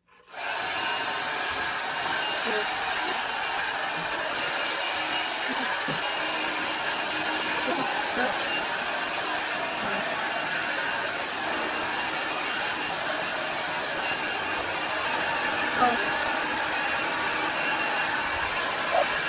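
A blow dryer drying a wet dog, switching on abruptly and then blowing with a steady rushing hiss.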